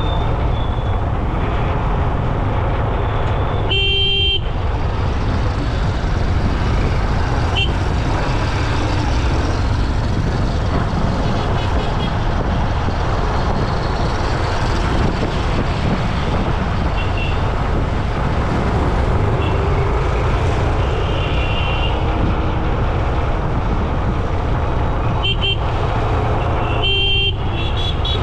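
Steady road traffic noise with a heavy low rumble, heard while riding along a road. Vehicle horns honk about four seconds in and again near the end, with a couple of shorter toots between.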